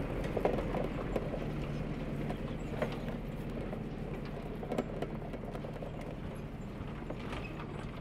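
A steady low mechanical hum with a few light clicks and knocks scattered through it, from dough and hands against steel trays and enamel bowls.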